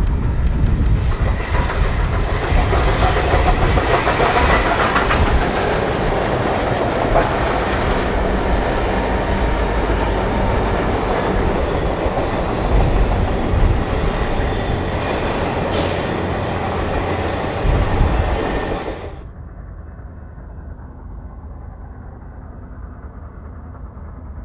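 Union Pacific Big Boy 4014's steam excursion train passing close by: a loud, dense rumble with wheels clattering on the rails. About 19 seconds in it cuts off sharply to a quieter, muffled rumble.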